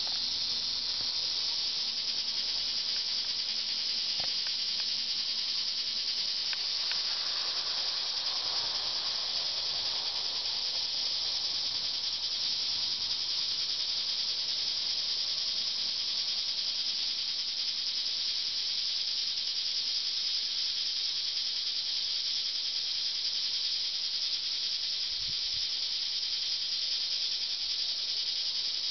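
A steady high-pitched hiss that goes on unchanged, with a few faint knocks.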